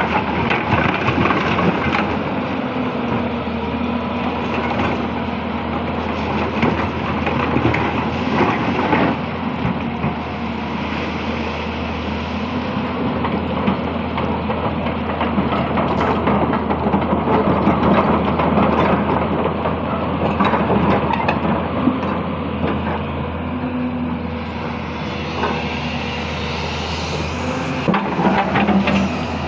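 Hyundai 220-9S crawler excavator's diesel engine running steadily under load as the machine digs the riverbed, with rushing and splashing water and occasional knocks of the bucket working in the river.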